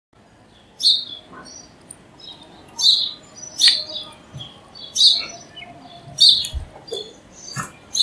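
House sparrow chirping: six loud, short chirps about a second or so apart, with fainter chirps between them.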